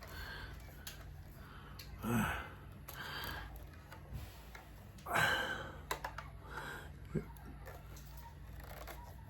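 Quiet handling with two breathy exhales about 2 and 5 seconds in and a single sharp click about 7 seconds in, over a steady low hum.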